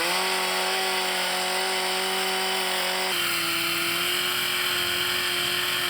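Two-stroke chainsaw revving up sharply and held at steady high revs, carving wood, with a small shift in pitch about halfway through.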